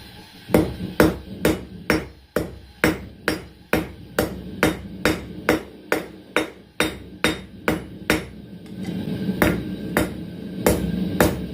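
Blacksmith's hand hammer striking steel bar on an anvil in a steady rhythm of about two blows a second, forging a pair of tongs. A steady low hum comes in under the blows near the end.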